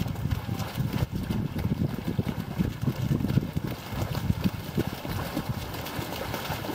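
Many runners' feet splashing and slapping through a shallow flooded puddle, a dense, irregular patter of overlapping splashes and footfalls.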